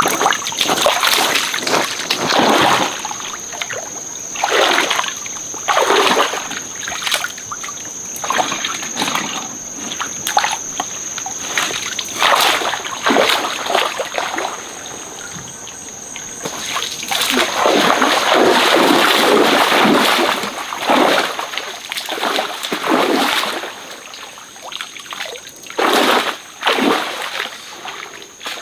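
Stream water splashing and sloshing in irregular bursts, some short and some drawn out, with a steady high-pitched whine behind it.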